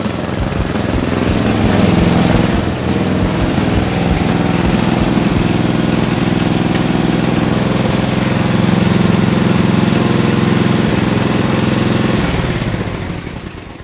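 Riding lawn mower engine running steadily, then dying away near the end as it is shut off.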